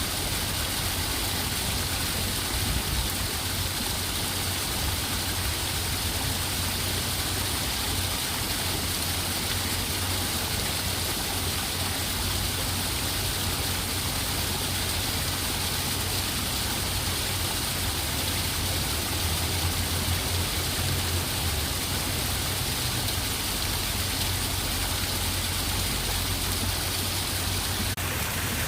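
Steady rushing water, an unbroken even hiss with a deep low rumble underneath.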